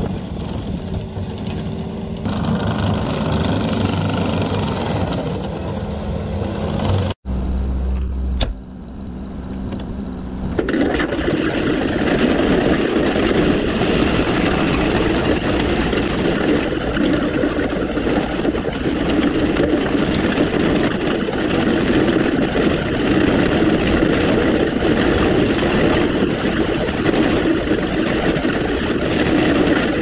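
Case TV450 compact track loader's diesel engine working steadily as the machine pushes dirt; it cuts out abruptly about seven seconds in, and from about ten seconds on the loader's engine runs steadily, heard from the operator's seat as it drives with a dozer blade over gravel.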